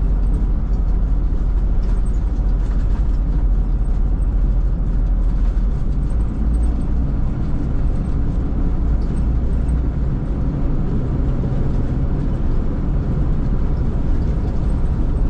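Steady engine and road drone heard inside a moving vehicle's cabin at highway speed, a constant low rumble.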